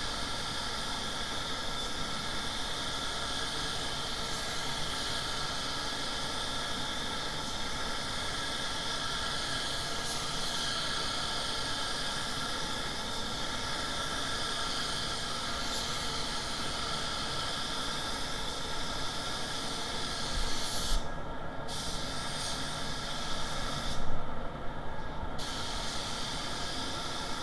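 Siphon-feed paint spray gun hissing steadily as compressed air atomises the paint. The trigger is let off briefly about three quarters of the way in and again for about a second near the end, cutting the hiss, with small handling knocks around each break.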